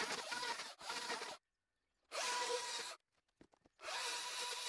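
Electric chainsaw with a freshly fitted and tensioned replacement chain, cutting into cardboard in three short bursts, each starting and stopping abruptly, with a steady whine under the cutting noise.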